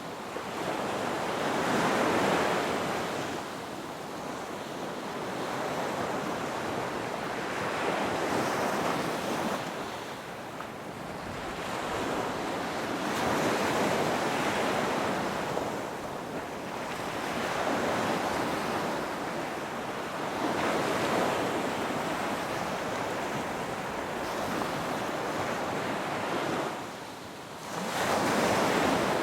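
Ocean waves surging and washing ashore: a rushing surf noise that swells and fades about every five to six seconds.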